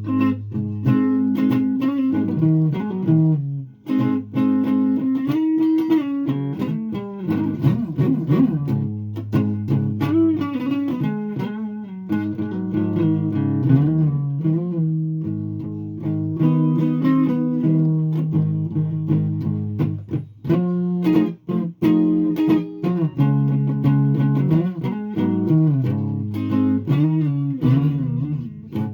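Guitar being played freely, a run of changing notes and chords. It breaks off briefly about four seconds in and again around twenty-one seconds in, and some notes waver in pitch about eight seconds in.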